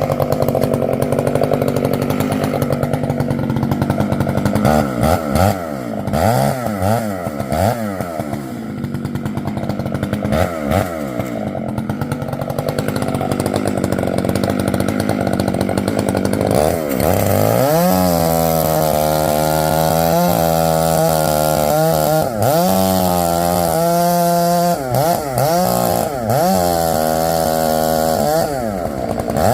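Stihl chainsaw engine at a low, steady speed at first, then blipped up and down several times. About halfway through it goes to full throttle and holds there, its pitch dipping and recovering again and again as the chain works through poplar wood.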